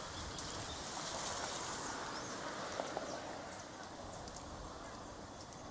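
Outdoor ambience: scattered high chirps of small birds over a steady background hiss that swells slightly and then eases off.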